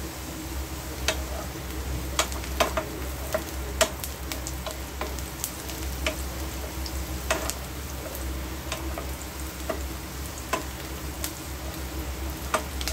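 Food sizzling as it fries in oil in a pan, stirred with a metal spoon that clicks against the pan at irregular moments, over a low steady hum.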